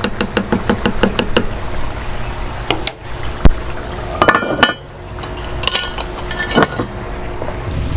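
Wooden spoon stirring thick chili in a cast iron Dutch oven, with quick regular ticks against the pot. About four seconds in, the cast iron lid is set on with a ringing clank, followed by a couple of knocks as the wire bail handle is laid against the pot.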